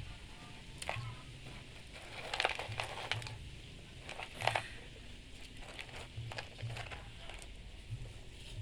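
Plastic toy excavator and dump truck scraping and scooping sand: irregular gritty crunches and scrapes, the loudest about two and a half and four and a half seconds in.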